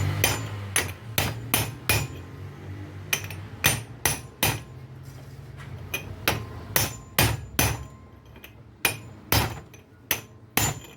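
Hammer blows on an alternator bearing being replaced: a run of sharp metal-on-metal strikes, about two a second in short groups with pauses between, some leaving a brief ringing tone.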